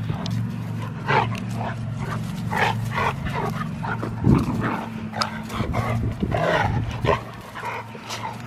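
Dogs playing, with many short barks and yelps over a steady low hum.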